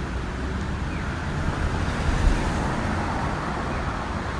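Steady street traffic noise from passing cars, swelling a little about two seconds in as a vehicle goes by.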